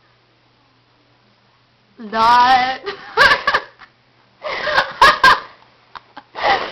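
A young woman's voice: after two quiet seconds she draws out a sing-song 'Not!', then breaks into loud, fitful laughter that comes in several spurts.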